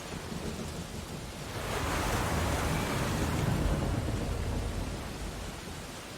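Ocean surf: a wave surges in about one and a half seconds in, a hiss with a deep rumble under it, then washes back down to the steady background wash of the sea over the next few seconds.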